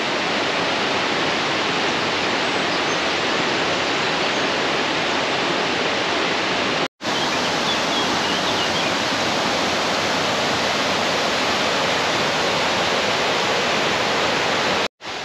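Steady rushing of water, cutting out for an instant twice.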